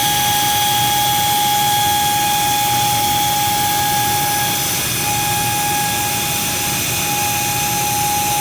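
A machine running steadily: a high-pitched whine over a loud rushing noise, with two brief dips in the whine about five and seven seconds in.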